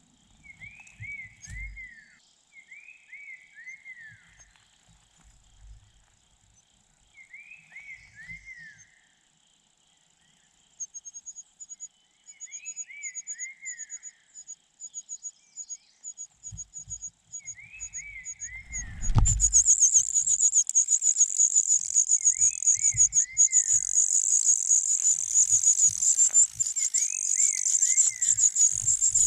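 Bird calls at a nest: a two-note falling call repeats every few seconds. About two-thirds of the way in, a low bump is followed by loud, continuous, rapid high-pitched chirping, fitting nestlings begging.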